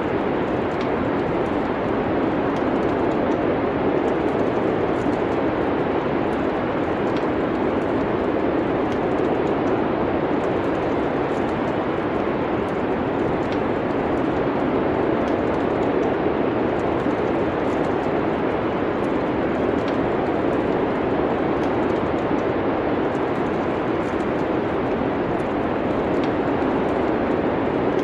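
Steady rushing wind of a winter snowstorm, with faint scattered crackles of a wood fire in a fireplace.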